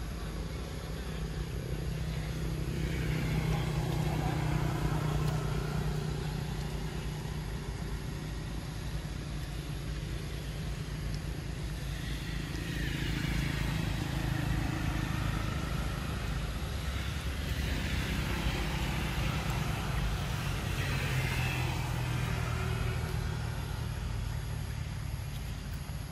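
Low hum of passing motor-vehicle engines, swelling twice: once a few seconds in and again from about twelve to twenty-two seconds.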